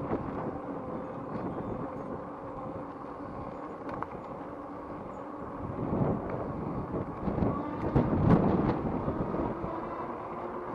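Riding a Rize Blade 2 electric bike: wind buffets the microphone over a faint steady motor whine and tyre noise, with louder gusts about six and eight seconds in.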